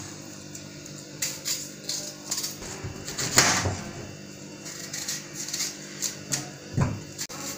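Kitchen knife paring the skin off a water yam: irregular short scraping and cutting strokes, with a longer, louder scrape about three and a half seconds in.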